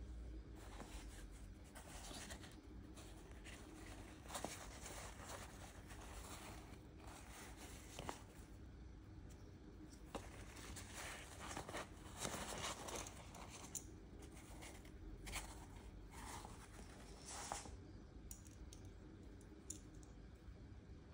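Rustling and scraping of a small nylon drawstring stuff sack being handled and opened and a compact stove slid out of it, in irregular bursts with a few light clicks.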